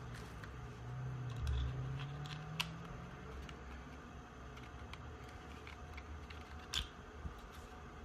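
Small plastic clicks and snaps from a handheld heater remote control as its battery cover is fitted and its buttons are pressed, the sharpest click about seven seconds in. Behind it the infrared heater's fan runs with a faint steady hum.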